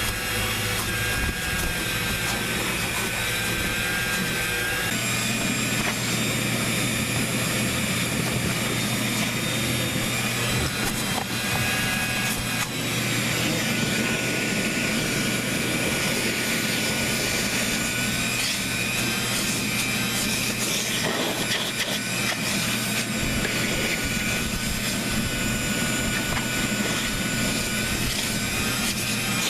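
A machine running steadily throughout, a continuous rushing noise with a low hum and a high whine that wavers slightly in pitch.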